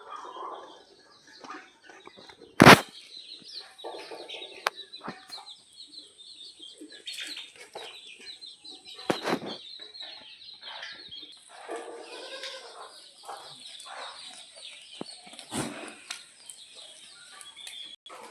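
Desi chickens clucking, with bursts of wing flapping. A sharp knock, the loudest sound, comes nearly three seconds in, and another about nine seconds in.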